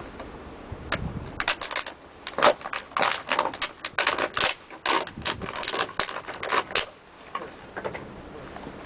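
A quick, irregular run of clicks, taps and rattles from containers being handled while milk is prepared. It is busiest in the middle and thins out near the end.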